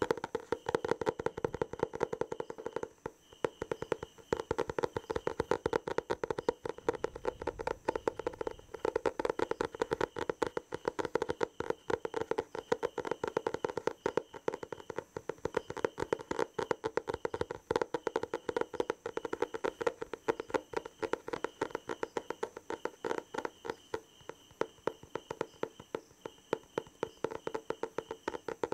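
Very fast, aggressive tapping on a hard surface: a dense run of rapid taps, many per second, with a brief lull about three seconds in.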